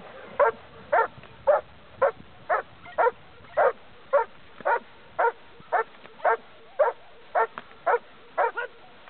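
German Shepherd barking steadily at a protection-training helper in a blind, about two barks a second in an even rhythm: the bark-and-hold exercise, in which the dog guards the helper by barking without biting.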